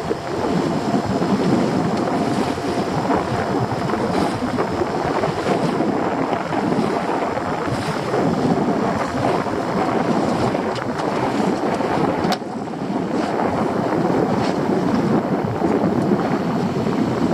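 Small boat under way, its engine running, with wind buffeting the microphone and water rushing past the hull.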